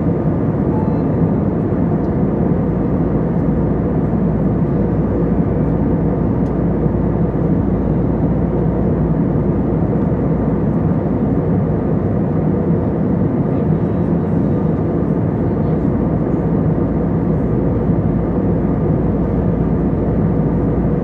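Steady cabin noise of an Airbus A320neo airliner in flight: an even, low-pitched rush of engines and airflow heard from inside the passenger cabin.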